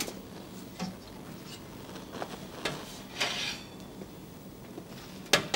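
Wall oven door opened and a lidded casserole dish taken out of it: scattered clicks and knocks of metal and pot, a brief scraping rustle about three seconds in, and a sharp knock near the end.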